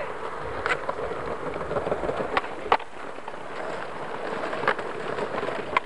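Skateboard wheels rolling over concrete paving slabs, a steady gritty rumble broken by about five sharp clacks from the board.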